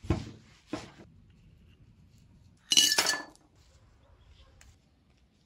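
Two short knocks near the start, then a louder ringing clink of glassware about three seconds in.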